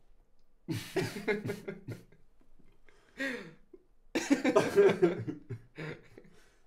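A man's soft laughter in short breathy bursts, with a louder stretch of laughing about four seconds in.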